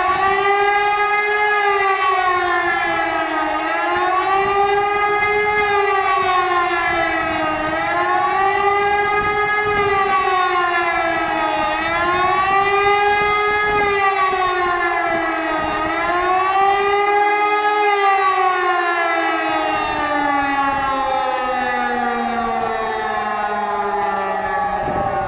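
E57 motor-driven civil-defence siren sounding the wailing warning signal of a test alarm, its pitch rising and falling about every four seconds. Near the end it stops cycling and winds down, the pitch sliding steadily lower.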